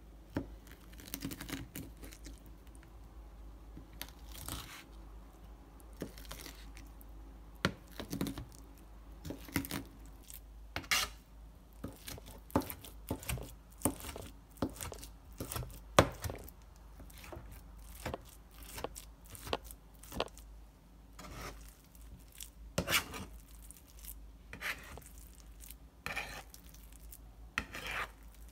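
Kitchen knife chopping raw peeled shrimp into a coarse mince on a plastic cutting board: irregular knife strikes on the board, coming in quicker runs later on, with wet slapping as the blade works the shrimp paste.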